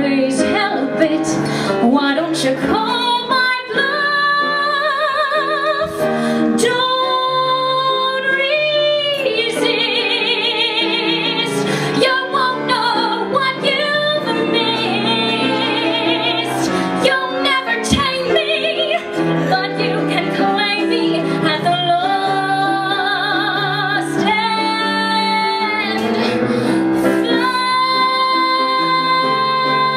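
A woman singing a jazzy show tune to piano accompaniment, with long held notes sung with a strong vibrato.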